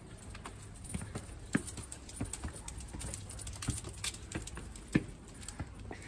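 Footsteps of a walker and his greyhound on hard paving: irregular sharp taps and clicks, a few to the second, over a steady low hum.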